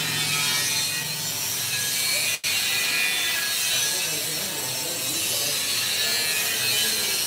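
Bakso meat-dough mixing machine running, its rotating stainless-steel bowl and belt drive making a steady, hissy mechanical noise. The noise cuts out for an instant about two and a half seconds in.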